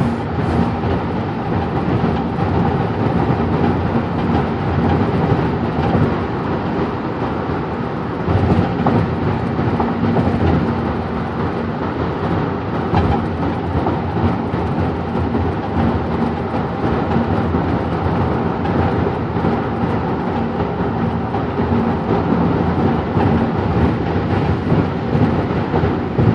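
Road rumble from a 2002 Infiniti I35 driving over rough pavement, with a recurring squeak from the front driver-side suspension. The owner suspects a bad outer tie rod or wheel bearing.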